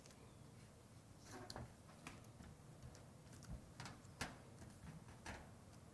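Near silence with a few faint clicks and rustles: mastic tape being handled and pressed down onto a metal snap lock roof panel.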